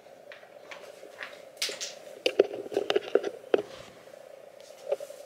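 Handling noise: scattered short clicks and rustles of clothing and small objects as the phone is moved close against the body, over a faint steady hum.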